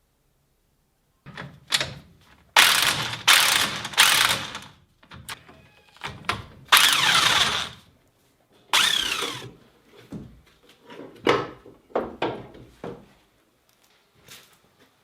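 Hand tools working on metal car parts: a run of irregular clanks, scrapes and ratcheting, with a few louder grinding scrapes, then lighter clicks toward the end.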